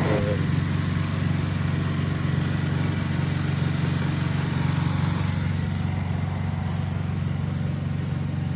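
An engine running steadily at an even speed, a low hum whose pitch does not change.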